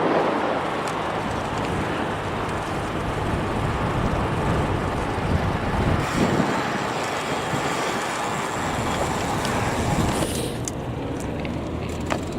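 Steady road traffic noise. The higher hiss drops away sharply about ten seconds in.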